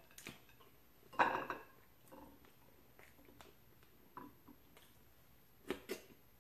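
Close-up eating sounds: a loud wet smack about a second in, then scattered soft clicks and smacks as fingers pick at chicken and dip food into a glass bowl of sauce, with a quick run of sharper clicks near the end.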